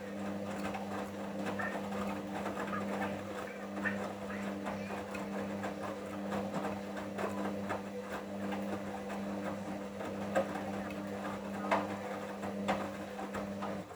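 Hoover washing machine at the end of its main wash: steady motor hum as the drum tumbles, with water sloshing and small knocks from the wet laundry. The hum cuts off suddenly near the end.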